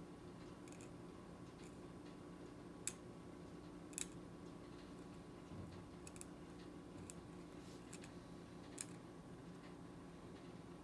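Metal universal curette working against the plastic teeth of a dental typodont in short activation strokes, giving faint, scattered clicks and ticks, the sharpest about three, four and nine seconds in.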